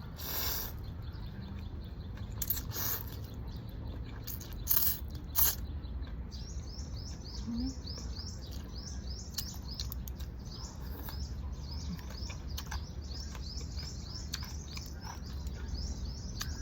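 A small bird chirping in a quick run of high chirps, about three a second, starting around six seconds in, over a steady low background hum. A few sharp clicks and knocks come in the first few seconds.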